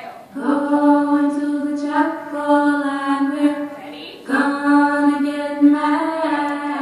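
Slow sung music with long held vocal notes in two phrases, the second starting about four seconds in.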